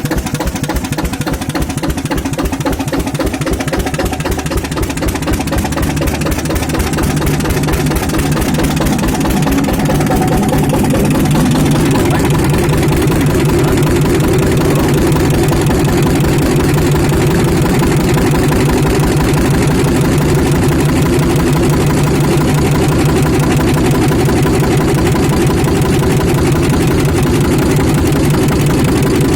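Yanmar N22Y single-cylinder diesel engine from the 1960s running with rapid, even firing beats, growing louder over roughly the first ten seconds and then holding steady: an old engine brought back to life after long disuse.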